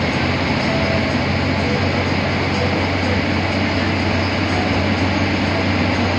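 A moving bus running steadily: a constant low engine drone under even road and wind noise, with no changes.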